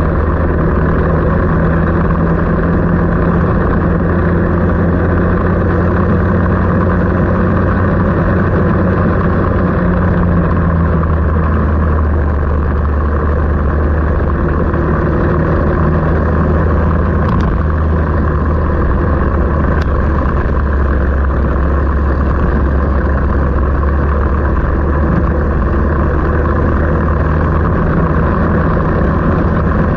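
An engine running steadily at a constant low pitch, with no revving.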